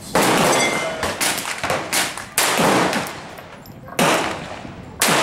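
Beretta 87 Cheetah .22 LR pistol fired shot by shot. There are four loud, sharp cracks about one to one and a half seconds apart, each ringing out as it fades, with a few fainter cracks between them.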